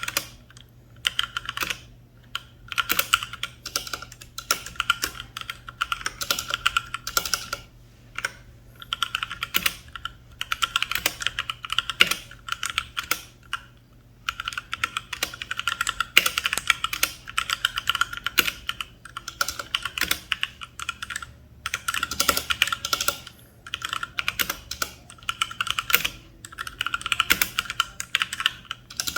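Typing on a mechanical keyboard fitted with PBT OEM-profile keycaps: rapid key clicks in runs of a few seconds, broken by short pauses.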